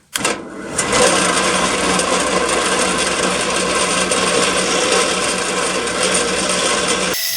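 Electric drill running, a 3/16-inch bit boring through oiled saw-blade tool steel. It starts with a click, comes up to a steady whirring grind within the first second, and stops abruptly near the end.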